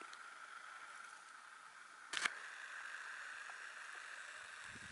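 Faint, steady outdoor background hiss with no clear source. A single sharp click about two seconds in breaks it.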